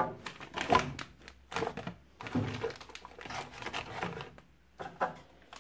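Clear plastic accessory bags crinkling and rustling as they are pushed back into a cardboard box, with a few soft knocks of the packing, in irregular handling noises with short pauses.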